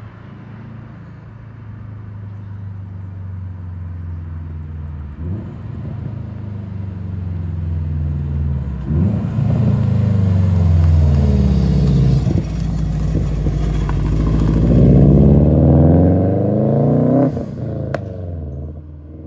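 Turbocharged Subaru WRX flat-four accelerating hard past, its engine note climbing through the revs and dropping back at each upshift, three times, growing louder as it goes by. The sound cuts off suddenly near the end.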